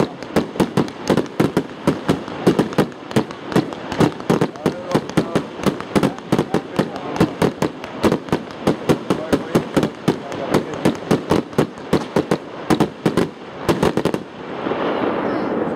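Fireworks display: a rapid barrage of aerial firework bursts, about five sharp bangs a second. Near the end the bangs stop and give way to a steady rushing noise.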